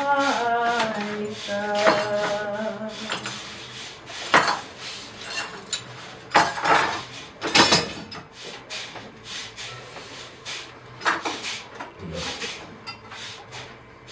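A woman's singing voice fading out in the first few seconds, then scattered clinks and clatter of dishes and cutlery, a few of the strikes ringing briefly.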